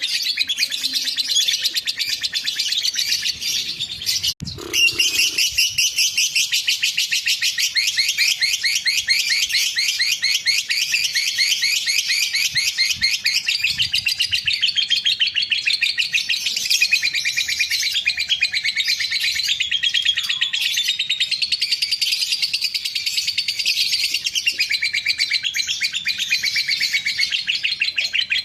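Lovebird singing a long, unbroken ngekek: a fast, shrill run of chirps, many notes a second, that breaks off only briefly with a low thump about four seconds in.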